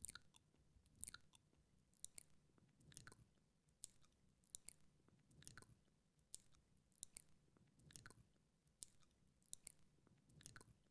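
Faint wet mouth sounds close to the microphone: short, irregular lip smacks and tongue clicks, about one or two a second, often in quick pairs.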